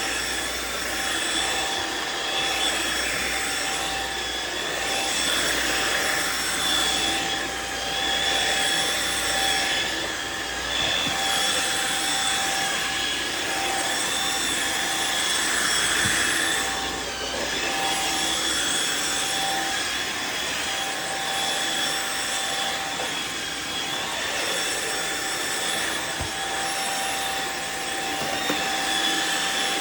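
Riccar R70 wet floor washer running: a steady motor whine over the hiss of suction and spinning brush rolls, swelling and easing every few seconds.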